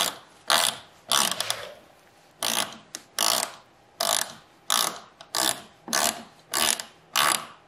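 A 10 mm ratcheting wrench clicking in short, regular strokes, about one every 0.7 seconds with a brief pause about two seconds in, as it tightens a 3D-printed PLA nut onto a battery terminal stud.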